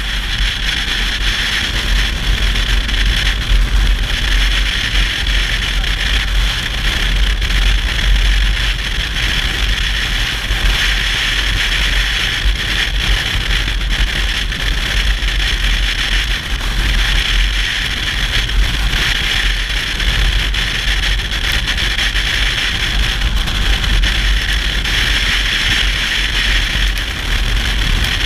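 A motorcycle being ridden: a steady, unbroken rush of wind and engine noise with a heavy low rumble.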